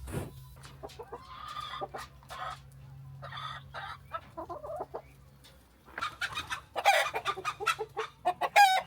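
Chickens clucking and squawking, the calls growing busier and louder in the second half, with a loud high call near the end.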